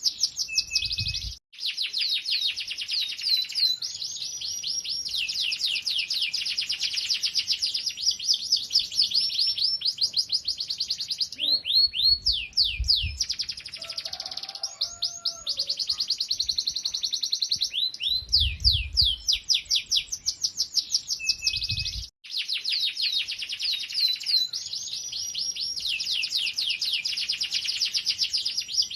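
Domestic canary singing continuously in rapid trills of fast repeated chirps, in full song (gacor), with two brief breaks in the song and a few short low rumbles underneath.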